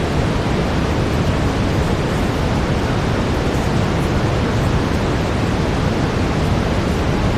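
Steady brown noise: an even, deep rushing hiss, strongest in the bass and thinning toward the top, with no breaks or changes.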